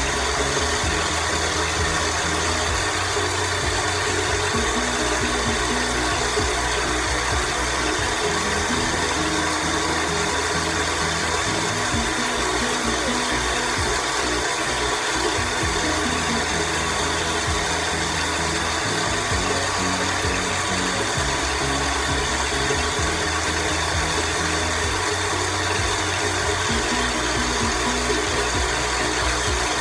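Small battery-powered facial cleansing brush running steadily, its head buzzing against lathered skin as it is worked over the face.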